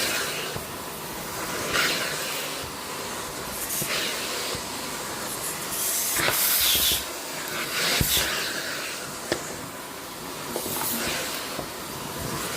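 Vacuum cleaner running: a steady hiss of suction that swells into louder rushes every two seconds or so, with a single sharp tap about nine seconds in.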